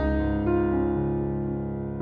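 Slow, gentle piano music: a chord with a deep bass note struck at the start and another note about half a second in, both left to ring and slowly fade.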